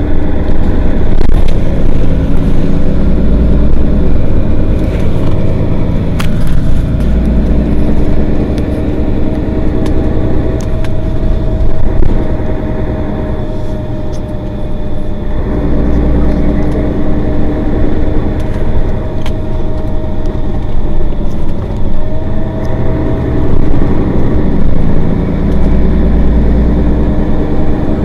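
Mercedes-Benz Citaro Facelift city bus's diesel engine driving in service: it pulls up in pitch, eases off and pulls again several times, with a steady whine riding over the engine.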